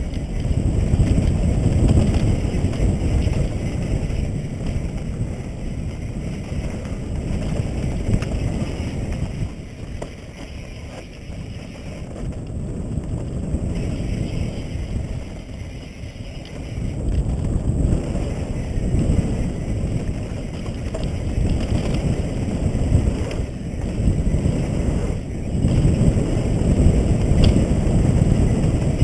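Wind rushing over a helmet-mounted camera's microphone, mixed with mountain bike tyres rumbling over a dirt trail at speed. It swells and eases with speed, dips for a few seconds mid-way and is loudest near the end.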